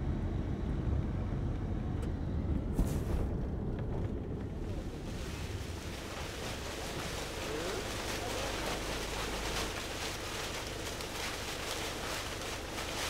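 Car driving on a dirt road, heard from inside: a steady low rumble of engine and tyres, joined about five seconds in by a rushing hiss of wind.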